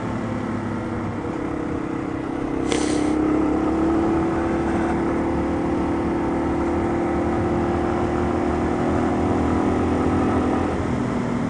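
Yamaha TW200's single-cylinder four-stroke engine running under way. Its note rises about two and a half seconds in and then holds steady, with a brief hiss just after the rise.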